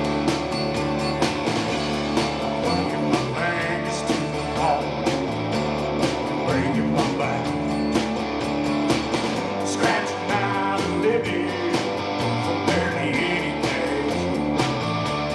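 Live rock band playing: guitar over bass and drums with a steady beat.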